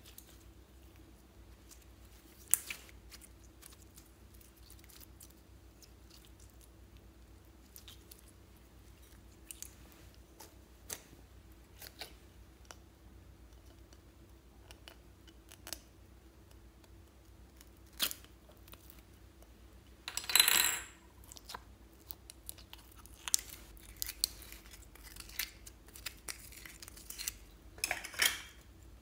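Sparse sticky clicks and crackles of clear slime squeezed and pulled apart by hand, along with the handling of a plastic slime tub. A louder crackling burst comes about two-thirds of the way in, and another cluster near the end.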